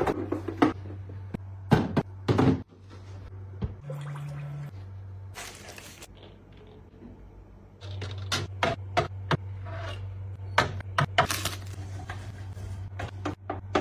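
Irregular clicks and knocks of fridge storage containers and accessories being handled and set down, with a brief hiss about six seconds in. A low steady hum underneath drops out for a few seconds in the middle.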